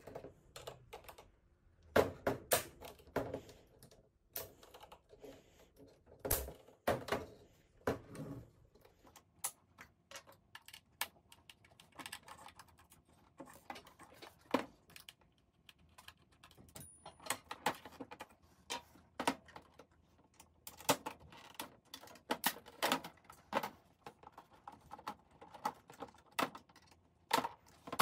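Irregular clusters of small plastic clicks and snaps as the clipped plastic frame around a 30-inch Apple Cinema Display's LCD panel is worked loose by hand.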